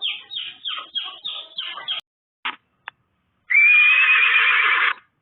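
Horse whinnying: a run of about six quick falling notes, two short cries, then after a pause a louder, long call with a wavering pitch.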